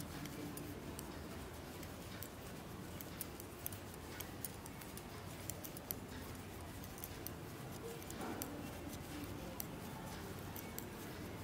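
Knitting needles clicking faintly and irregularly, several light ticks a second, as a row of purl stitches is worked, over a steady low background hum.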